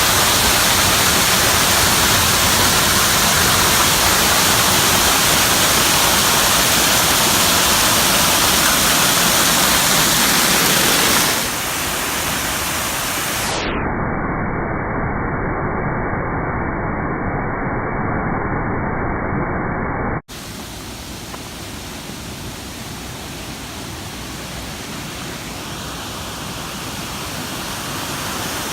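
Waterfall rushing, a loud steady noise of falling water. About eleven seconds in it gets a little quieter and then sounds muffled, with the high end cut off, and about twenty seconds in it drops abruptly to a softer rush that slowly grows louder.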